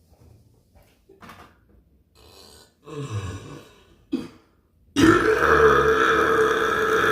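A long, loud, deliberate burp held at a steady pitch, starting about five seconds in, after a short, softer, low sound about three seconds in.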